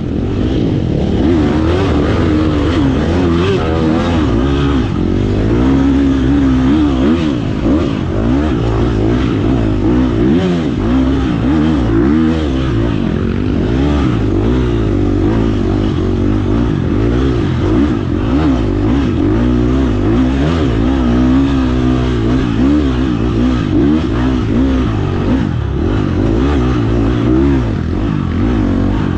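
Off-road dirt bike engine heard from onboard the bike, revving up and down continuously as the throttle is opened and closed, with quick rises and falls in pitch and no pause.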